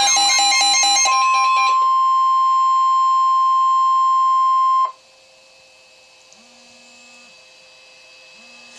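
Weather radio emergency alert: a warbling siren alarm ends about a second in, then the steady single-pitch NOAA Weather Radio warning tone (about 1050 Hz) holds for about four seconds and cuts off abruptly. Faint radio hiss follows, ahead of the spoken warning.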